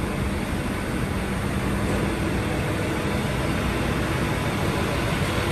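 Engine of a truck-mounted hydraulic crane running steadily while the crane lifts a heavy machine, with a faint steady hum over the noise.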